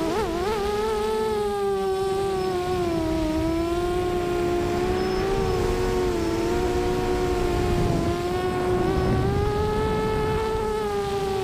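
Four Lumenier 2206 2000kv brushless motors spinning 5-inch HQProp propellers on a QAV250 racing quadcopter in flight, a high buzzing whine. The pitch wobbles quickly in the first second as the throttle is blipped, then holds fairly steady with slow rises and falls, the motors sometimes splitting into slightly different pitches. Wind rushing over the onboard camera adds a low rumble.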